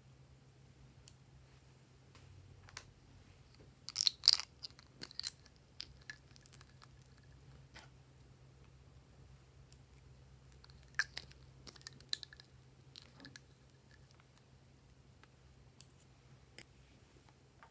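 Scissors snipping through lipstick sticks close up: crisp, crunchy cutting clicks in two clusters, about four seconds in and again around eleven to twelve seconds, with a few lone snips between.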